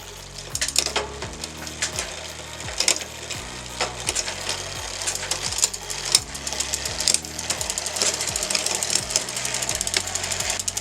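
Rapid, irregular metallic clicking and rattling of a bicycle drivetrain (chain running over the cassette and derailleur), over background music with a stepping bass line.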